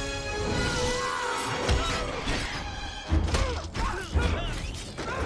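Action film soundtrack: an orchestral score under crashing impact effects and breaking glass, with heavy thuds a little after three seconds in and again about a second later.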